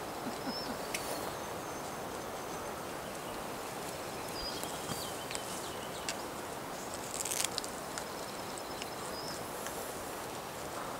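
Steady outdoor background noise with a few thin, high bird calls, and scattered sharp clicks, a quick cluster of them about seven seconds in.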